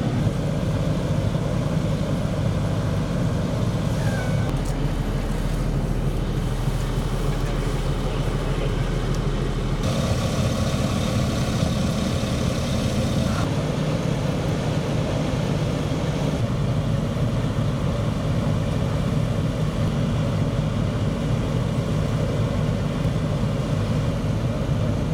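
Steady low rumble of large vehicle engines running, over city street noise. The background shifts abruptly several times.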